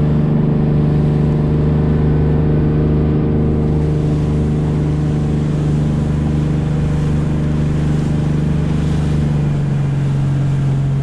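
Sportfishing boat's engine running loud and steady while underway, with a hiss of wind and water; the engine note drops slightly about nine and a half seconds in.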